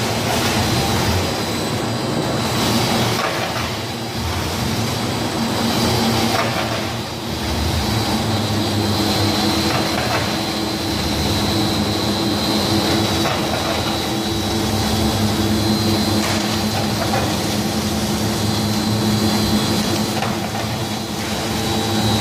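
Spindle hydraulic rotary veneer peeling lathe running, its knife peeling a pine log into thick (8 mm) core veneer. The noise is loud and continuous, with a steady hum and a thin high whine.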